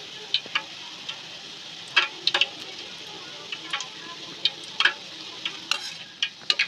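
Boondi (gram-flour batter drops) deep-frying in oil in a steel kadai with a steady sizzle. Sharp clicks come at irregular intervals as a wire skimmer stirs and knocks against the pan.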